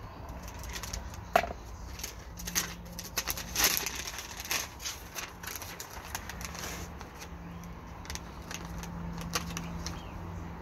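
Clear plastic sheet crinkling and crackling in bursts of short sharp rustles as it is cut with scissors and handled into a bag over a graft.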